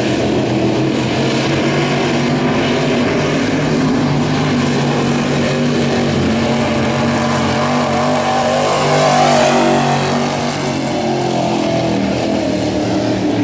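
Crate late model dirt race car's V8 engine running at high throttle around the track, swelling to its loudest with a falling pitch as the car passes closest about nine seconds in.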